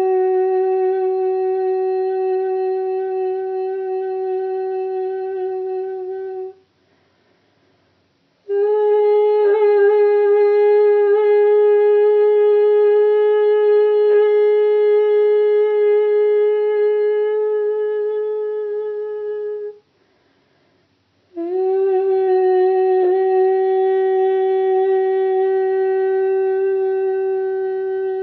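A singer's voice toning long held notes on one steady pitch, without words, as in light-singing meditation. There are three long notes with short pauses between them: the first ends about six seconds in, the second lasts about eleven seconds, and the third slides up slightly into the pitch as it begins.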